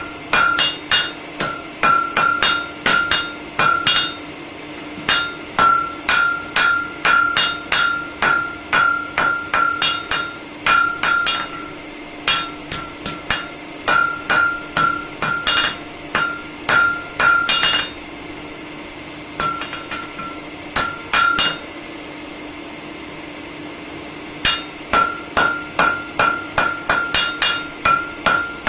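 Blacksmith's hammer striking iron on an anvil in runs of quick blows, about two to three a second, each blow ringing with a clear metallic tone. Short pauses break up the runs, and the longest comes near the end. A steady low hum runs underneath.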